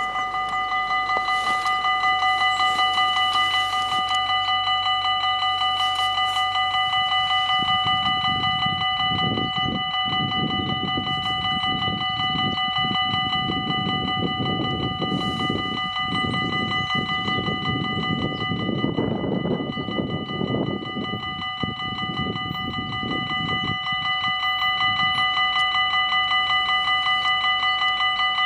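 Dutch level-crossing warning bells ringing rapidly and steadily while the crossing is closed. A low rumble builds in the middle, is loudest about two-thirds of the way through, then fades.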